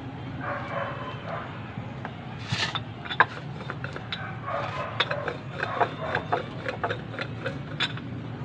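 Sharp, irregular clicks and knocks, several a second from about two and a half seconds in, as roti dough is rolled out with a rolling pin on a board beside a crackling wood fire.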